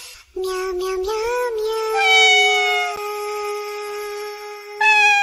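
Sung, synthetic-sounding meowing: a cat-like voice holds long pitched notes that slide up and down, like a song sung in meows. It breaks off just after the start and comes back louder near the end.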